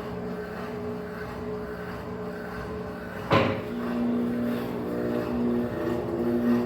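Electrolux Turbo Economia 15 kg (LTD15) washing machine running with a steady hum; a little over three seconds in there is a sharp clunk, after which a stronger hum comes on in pulses.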